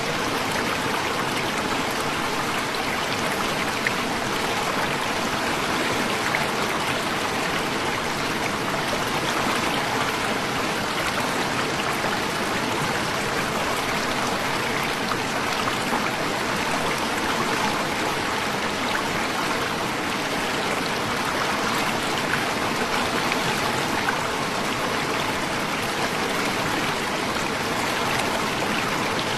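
Waterfall running, a steady rush of falling water that holds an even level throughout.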